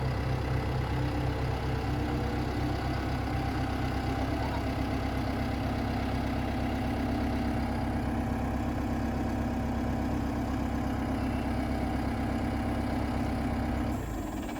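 Tractor engine running steadily at a constant pitch, cutting off abruptly near the end.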